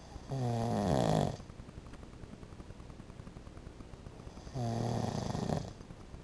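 A sleeping man snoring: two snores, each about a second long, about four seconds apart.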